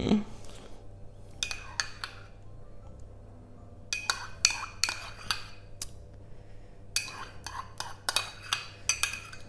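A metal spoon clinking and scraping against a small ceramic pot as thick yogurt is scooped out, in three short runs of clinks.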